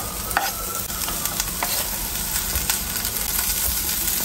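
Green beans and tempeh sizzling in oil in a frying pan with sautéed spice paste. Scattered light clicks and scrapes come from the knife on the cutting board and the spatula stirring in the pan.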